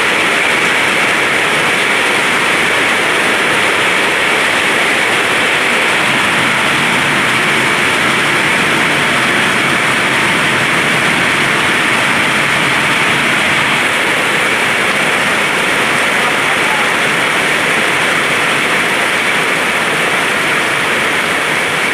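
Heavy rain falling steadily: a loud, even hiss with no pauses.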